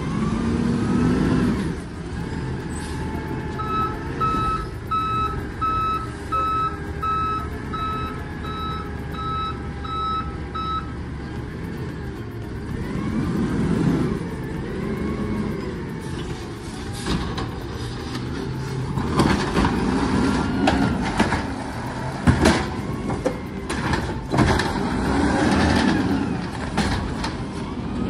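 Natural-gas automated side-loader garbage truck running, with its warning beeper sounding about eleven times, roughly one and a half beeps a second, from about four to eleven seconds in. In the second half the hydraulic lift arm whines and the carts clank and bang as they are gripped and lifted.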